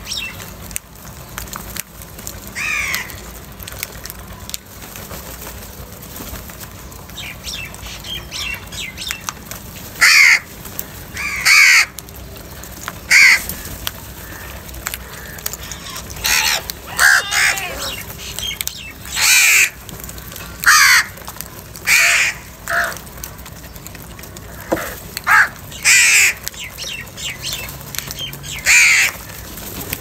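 A flock of house crows cawing: fainter calls at first, then about a dozen loud, harsh caws, one every second or two, from about a third of the way in.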